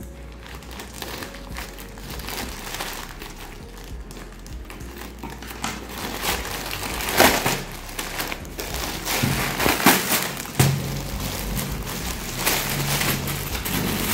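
Plastic courier mailer bag crinkling and crackling as it is cut open with scissors and torn apart by hand. It gets louder about halfway through, with several sharp crackles. Near the end the clear plastic polybag around the jeans is handled.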